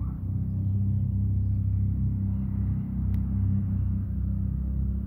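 A steady, low rumbling engine hum, with a single sharp click about three seconds in.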